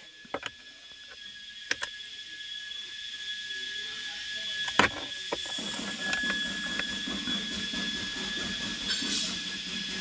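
Long metal screwdriver working the lower screw under a car's steering wheel: a few scattered sharp clicks of the tool on the screw and wheel trim. A steady high-pitched whine runs underneath.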